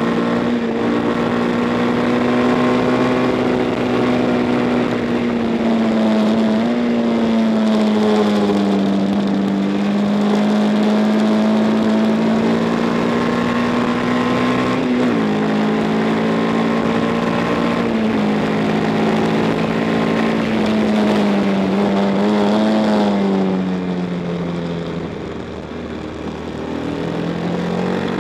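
1962 Matchless G50's single-cylinder four-stroke racing engine running hard at speed. The engine note wavers and jumps in pitch several times, then drops and quietens about 23 s in as the throttle is closed for a corner, and climbs again near the end.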